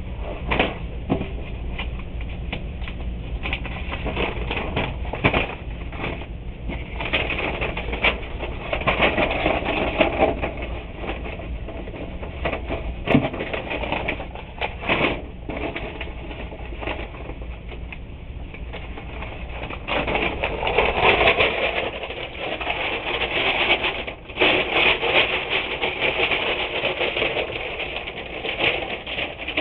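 Sheets of newspaper rustling and crinkling as they are handled and spread out, in uneven louder and quieter stretches, with a few sharp knocks.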